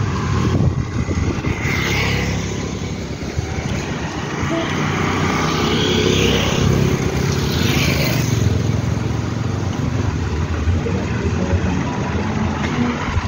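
Road traffic going past close by: motorcycles and cars passing over a steady low engine rumble, with a few swells as vehicles go by.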